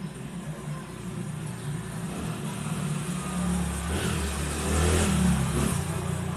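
Low engine rumble of a road vehicle, growing louder from about three seconds in and easing off near the end.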